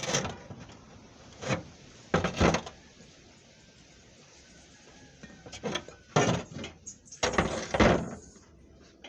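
Intake valve being lapped into its seat in a cylinder head with coarse grinding compound: several separate short scraping and knocking sounds of the valve worked against its seat, the longest near the end.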